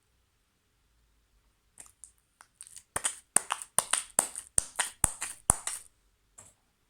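Slime being squished and kneaded by hand, giving a run of sharp wet clicks and pops, two or three a second. It starts about two seconds in and stops about a second before the end.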